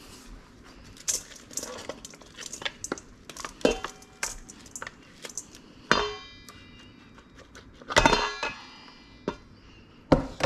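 Kitchenware clinking and knocking: a run of light taps, with two louder ringing clanks about six and eight seconds in.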